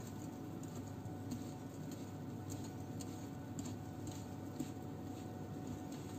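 Wire whisk stirring thick cake batter by hand in a glass bowl, with irregular light ticks of the whisk against the glass, over a steady low hum.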